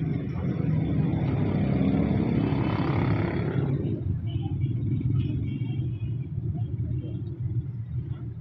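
Steady low rumble of the kind a passing vehicle makes. A louder rushing noise swells over the first few seconds and dies away about four seconds in.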